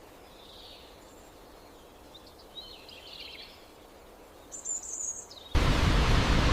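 Faint birds chirping over quiet forest background, a few short high calls with a sharper, higher call near five seconds in. About five and a half seconds in, the loud steady rush of a waterfall cuts in suddenly and drowns them out.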